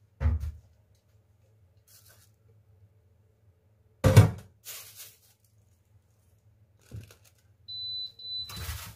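Knocks and thumps of a metal baking tray being handled on a kitchen counter, the loudest about four seconds in. Near the end comes a high electronic appliance beep lasting about a second.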